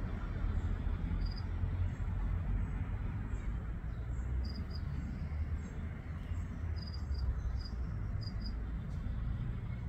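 Outdoor ambience: a steady low rumble with short, high chirps, mostly in pairs, repeating irregularly every second or so.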